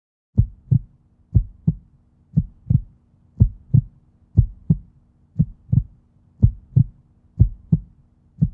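Heartbeat sound effect: paired low thumps, a 'lub-dub' about once a second, starting about half a second in, over a faint steady hum.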